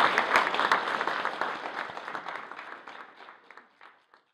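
Audience applauding after a talk, the clapping thinning out and fading away to nothing near the end.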